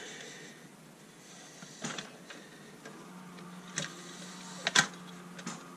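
Scattered clicks and light knocks of the old lantern torch's plastic casing and parts being handled during disassembly, the loudest a sharp double click near the end. A faint steady hum comes in about halfway through.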